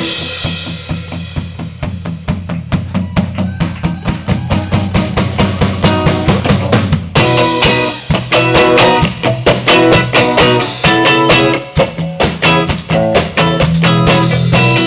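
A live band starts an instrumental passage: drum kit and bass on a steady beat, with chords from other instruments, among them guitar, coming in about seven seconds in.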